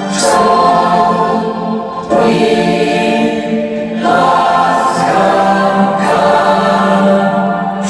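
Music with a choir singing sustained chords that change about every two seconds, over a steady low drone.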